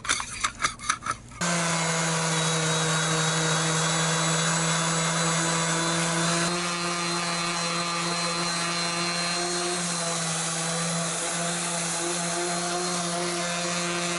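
A few quick scraping strokes of a putty knife on a yacht keel's old antifouling paint. Then an electric palm sander starts and runs steadily as it grinds the antifouling off the keel, easing slightly about six seconds in.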